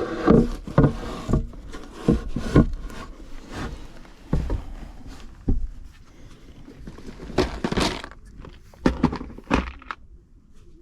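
Irregular knocks, thumps and scraping from handling a crushed 12-inch sheet-metal HVAC duct while working it back into a round shape. There is a cluster of sharp knocks at the start, more around two and a half seconds and again at seven to ten seconds.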